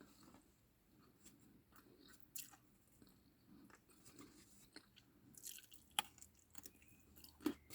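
Faint chewing of food, with a few short crunching and smacking sounds scattered through a near-silent stretch.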